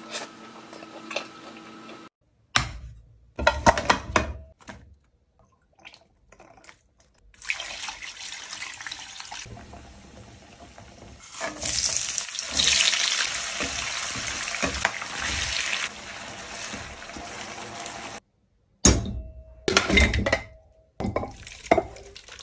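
Sliced ginger, scallion, star anise and other whole spices sizzling in hot oil in a frying pan: a steady hiss that swells and carries on for several seconds. Knocks and clatters of cookware come before it and again near the end.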